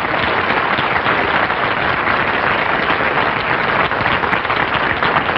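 Studio audience applauding, a steady dense clapping that holds at one level throughout.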